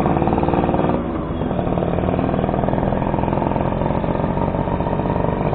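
Suzuki RC100 Bravo's two-stroke single-cylinder engine running at low revs, its level dipping briefly about a second in.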